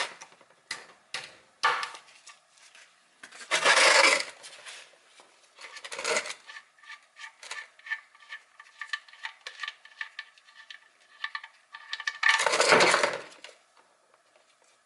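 Ratchet and 17 mm socket working the oil drain bolt out of the oil pan: many short metallic clicks and clinks, with three louder bursts of rushing noise, one near the start, one about 4 s in and one about three quarters of the way through.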